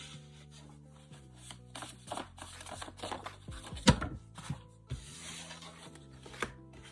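Soft background music with long held tones, over tarot or oracle cards being handled: scattered short card taps and rustles, the sharpest snap about four seconds in.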